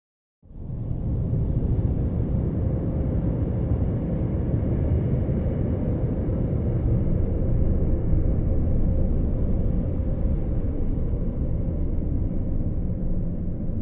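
A steady low rumble with a faint constant hum, fading in about half a second in after a moment of silence.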